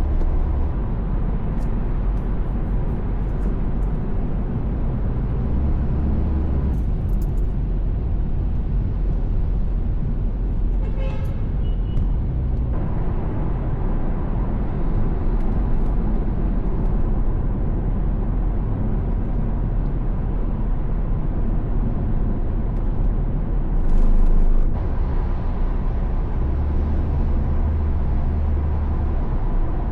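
Steady road noise of a car travelling at speed on an expressway: tyre and engine rumble with a continuous wash of traffic. A brief louder swell comes about 24 seconds in.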